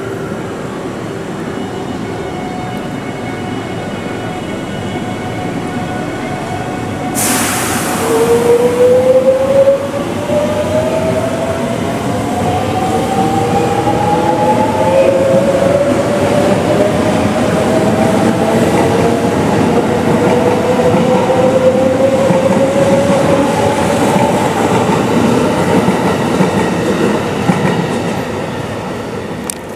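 Limited express electric train pulling out of the platform. A sudden hiss comes about seven seconds in, then the traction motors set up a whine of several tones that climbs steadily in pitch as the train accelerates away.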